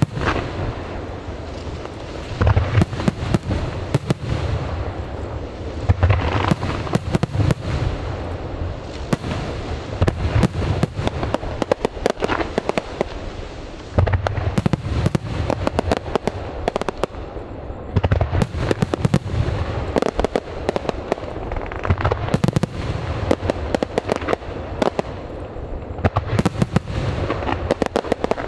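Aerial fireworks display: rapid, continuous bangs and crackling with deep shell booms every few seconds.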